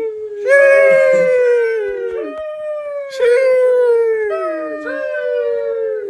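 A dog howling in a series of long calls, each one sliding down in pitch, with new howls starting about every second or two and sometimes overlapping.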